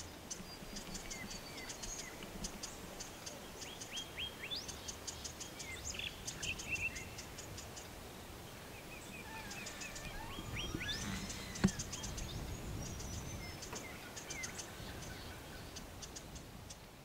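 Birds calling over a low steady background rumble: trains of rapid high chirps and short gliding whistled calls, with one sharp tap about two-thirds of the way through.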